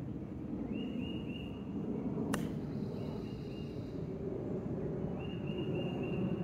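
A single sharp click as a golf iron strikes the ball off the tee, about two seconds in, over a steady outdoor rumble. Short runs of three or four high chirps from a bird come before and after the hit.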